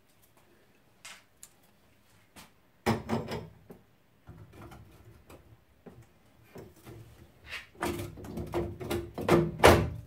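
Hands working inside an open combi boiler: scattered clicks and metallic knocks as parts and fittings are handled and set in place. There is a sharp knock about three seconds in, busier clatter toward the end, and the loudest knock just before the end.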